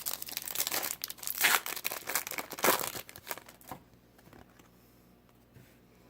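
A trading-card pack's foil wrapper being torn open and crinkled, with dense crackling for about four seconds that is loudest twice in the middle, then it stops.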